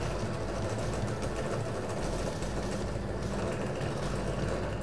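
Bench drill press running, its 5 mm bit boring a hole through a black plastic enclosure: a steady motor hum under the noise of the cut.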